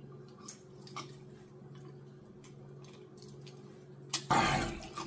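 Quiet sips and swallows of Diet Dr Pepper, with faint small clicks over a steady low hum. About four seconds in comes a louder breathy noise lasting under a second.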